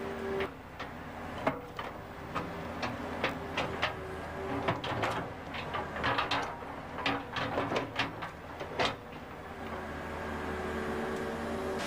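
Hydraulic excavator bucket scraping and pushing loose stone, with many sharp knocks and clacks of rock on rock and steel, thickest in the middle. The excavator's engine hums steadily underneath.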